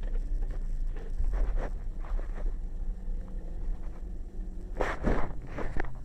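Handling noise as a phone camera is moved about inside a car, over a low steady rumble, with a few sharp knocks about five seconds in.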